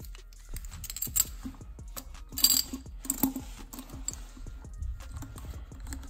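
Stainless steel T-bolt hose clamps clinking and jingling as they are handled and slipped over a silicone coupler, in a string of small metallic clicks with the loudest clanks about two and a half and three seconds in.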